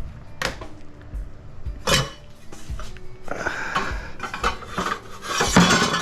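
Cut pieces of scrap copper pipe and fittings being handled, clanking and clinking against each other. There are two sharp ringing knocks, then a busier run of rattling clatter over the last few seconds.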